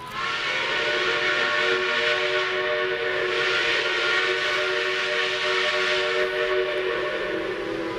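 Steam locomotive whistle blowing one long, steady held blast of several tones together.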